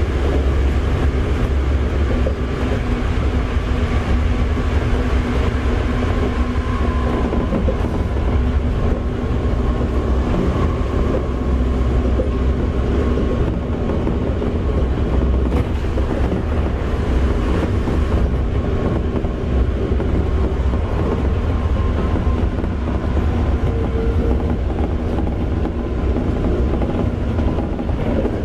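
Toei 5300 series electric train with a Mitsubishi GTO-VVVF inverter, heard from inside the car while it runs: a steady low rumble of wheels on rail with a faint motor whine over it.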